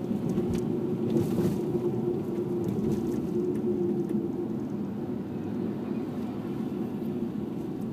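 Subaru Legacy's flat-four boxer engine and road noise heard from inside the cabin as the car accelerates gently in city traffic. It is a steady drone with no sharp changes.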